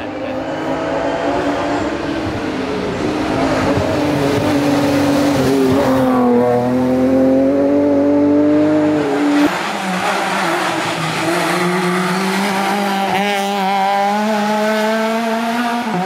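Rally car engine at hard throttle, its pitch climbing and dropping repeatedly as it works through the gears. The engine note changes abruptly about nine and a half seconds in.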